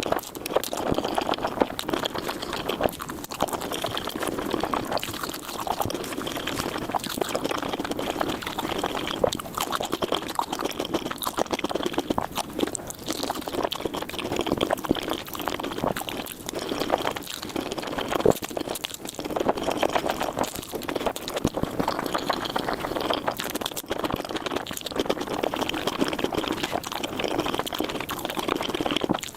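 Close-miked, wet chewing and slurping of noodles in big bites, sped up to four times normal speed: a dense, continuous run of quick smacks and clicks.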